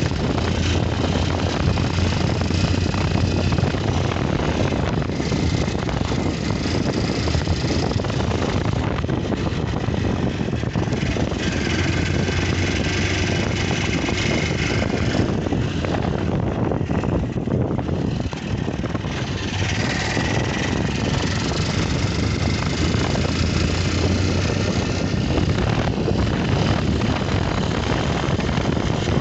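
Honda CG 160 Fan's single-cylinder four-stroke engine running steadily, carrying the engine noise the owner is presenting as a problem.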